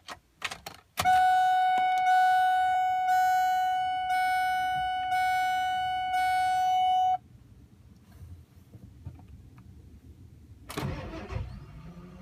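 1999 Ford F-350's dashboard warning chime dinging six times, about once a second, each ding fading a little before the next, then stopping. A short burst of rustling noise follows near the end.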